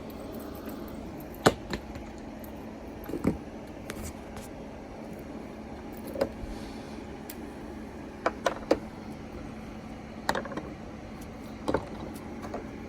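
Scattered sharp metal clicks and knocks of hand tools and wheelchair wheel parts being handled and set down, including three quick clicks in a row partway through, over a faint steady hum.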